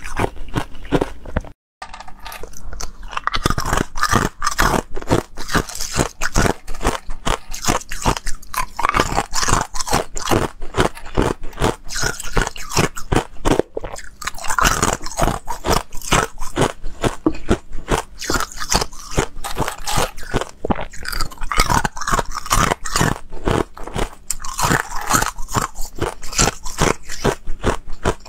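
Ice cubes bitten and crunched between the teeth, close to a clip-on microphone: a dense run of sharp cracks and crunches. There is a short silent break about two seconds in.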